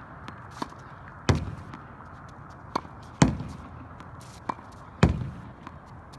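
Tennis ball rallied against a practice wall: a short, sharp pock of the racket striking the ball, followed about half a second later each time by a louder, booming thump of the ball hitting the wall, which rings briefly. The pair comes three times in an even rhythm, with a fourth racket hit near the end.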